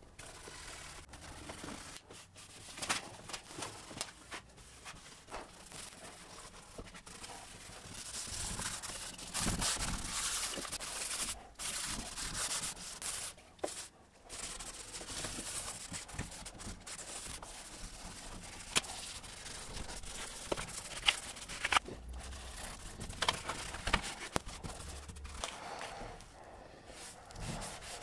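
A cloth rag rubbing gel stain onto bare wood in repeated wiping strokes, with a few sharp small clicks and knocks.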